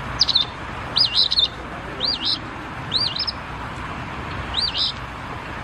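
Recorded Eastern Phoebe song played back: a two-part phrase, a high arched note followed by a short buzzy one, repeated about five times at roughly one-second intervals.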